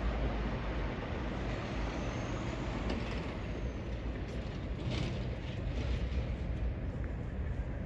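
Steady low rumble of passing road traffic, with a faint high whine about two seconds in.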